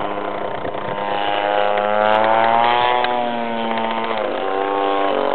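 Engine of the MT50 radio-controlled model plane running in flight, a steady buzzing drone. Its pitch climbs gradually, holds, then drops quickly about four seconds in and runs on lower.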